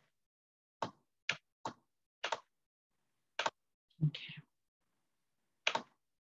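Computer mouse button clicking: about six sharp single clicks at uneven intervals, with a short, duller knock about four seconds in.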